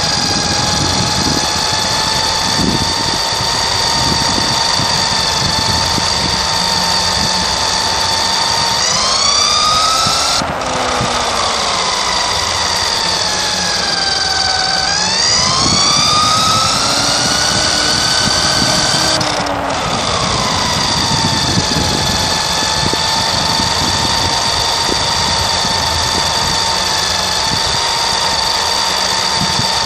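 Vintage Nikko Dictator II Gig RC buggy's electric motor and gears whining as it drives, the pitch falling and rising with its speed twice, over the rumble of its tyres on the track.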